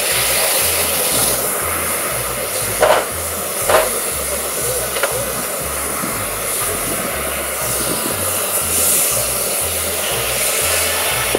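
Sawmill driven by a 1912 Case 110 steam traction engine, running with a steady rushing noise and a low pulse about twice a second. Two short sharp sounds come about three and four seconds in.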